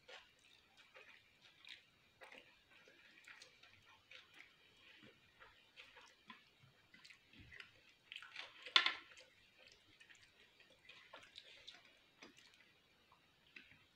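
Close-miked chewing of a mouthful of spiced spiral pasta: soft, wet mouth clicks and smacks, along with fingers working through the pasta on the plate. One louder burst of smacking comes a little past the middle.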